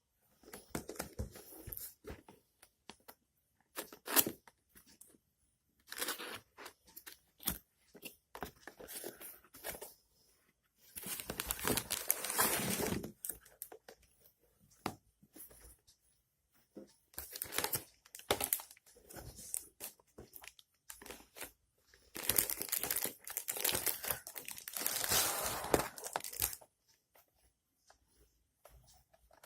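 Packaging being handled while the product is unboxed: tearing and crinkling in irregular bursts with small clicks. The two longest, loudest bursts come about midway and near the end.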